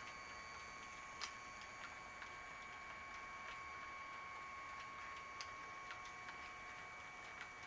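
HO-scale model freight train rolling past, its wheels clicking sharply over the rail joints at uneven intervals, roughly once a second, with the loudest click about a second in. A faint steady high whine and hiss sit underneath.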